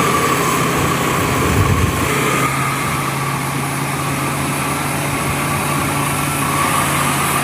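Small electric motor of a toy construction vehicle running steadily, a continuous whirring whine that eases slightly about two and a half seconds in.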